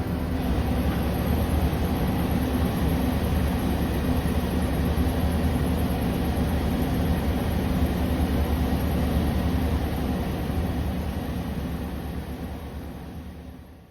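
Suzuki Every van running at a standstill: a steady mechanical hum with a faint high whine, fading out near the end.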